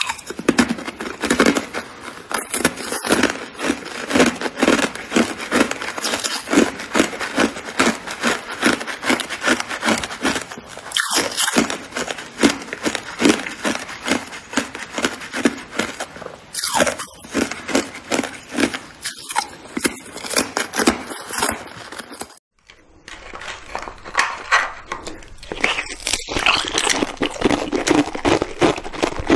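Red-coloured ice being bitten and chewed close to the microphone: continuous rapid crunching, with a brief break about 22 seconds in.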